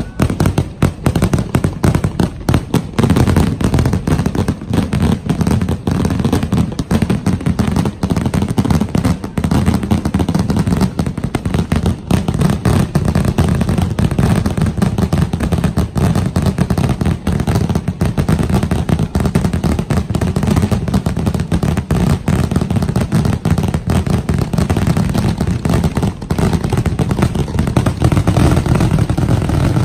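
Loud, dense barrage of firework explosions: rapid, overlapping bangs that run together into a continuous deep rumble.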